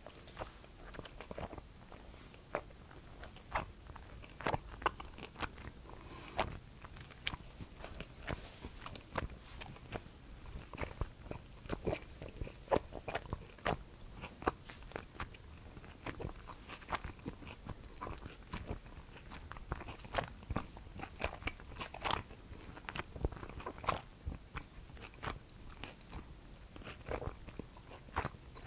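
A person biting and chewing pan-fried dumplings coated in a sticky sweet-spicy glaze, close to the microphone: a stream of irregular crunchy, sticky clicks.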